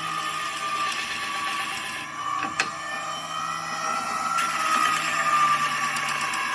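Homemade slow-speed carbide grinder running: a steady motor hum with a wavering whine, and a scratchy hiss that swells and fades as a carbide blade is ground against the wheel. A sharp click about two and a half seconds in.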